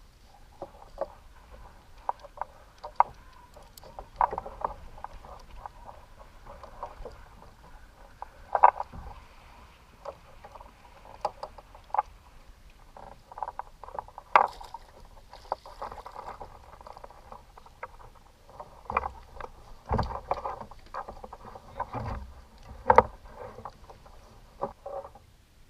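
Irregular hollow knocks and slaps on a plastic kayak hull, some single and some in quick clusters, over a low background wash.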